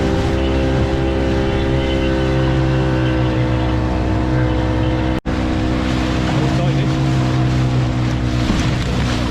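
Outboard motor running steadily at a constant speed with the boat under way, broken by a split-second gap about five seconds in.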